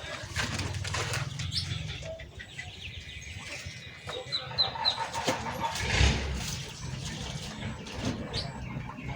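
Small caged songbirds in an aviary giving short, high chirps, with wing flutters, rustling and clicks. A louder knock comes about six seconds in.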